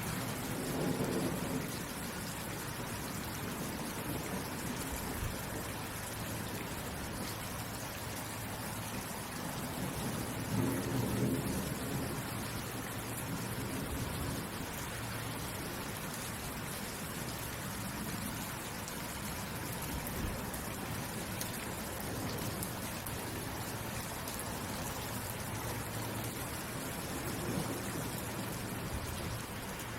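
Steady heavy rain falling as an even hiss, with low rumbles of thunder swelling up three times: near the start, about a third of the way through (the loudest), and near the end.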